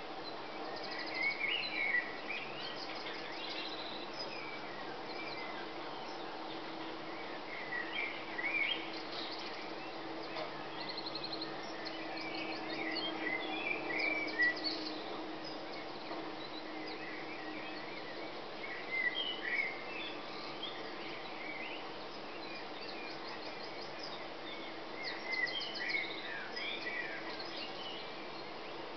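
Songbirds singing in the dawn chorus: a short burst of bright song comes about every five or six seconds, with fainter high trills between. A steady low hum runs underneath.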